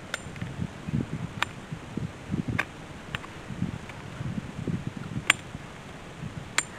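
Aluminum electric-fence wire being worked by hand at a steel T-post: about six sharp metallic clicks and ticks, a few with a brief high ring, over soft rustling and handling knocks.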